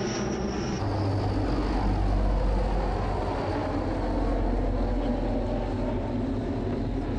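A Transall C-160 twin-turboprop transport aircraft flying overhead, a steady low engine drone whose pitch falls over the first few seconds as it passes.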